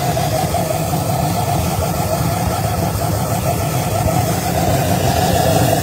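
Gluhareff 130 pressure jet engine, a propane-fuelled valveless jet, running steadily: a continuous loud rushing noise over a rough mid-pitched drone and a low rumble.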